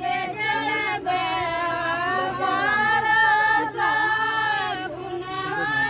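Several high voices singing together in long, drawn-out notes, a ritual song.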